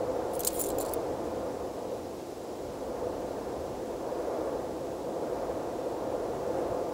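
Steady rushing ambient noise, with a brief light metallic jingle about half a second in.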